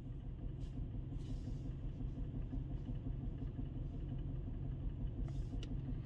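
Mercedes-AMG GT 63 S twin-turbo V8 idling steadily, a low even rumble. The engine has a misfire detected on cylinder 4.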